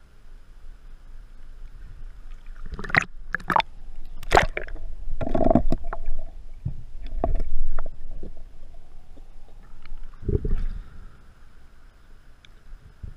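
Pool water splashing and gurgling against a camera held at and just under the surface, with a run of sharp splashes in the first seconds and more sloshing and gurgling as the swimmer goes under.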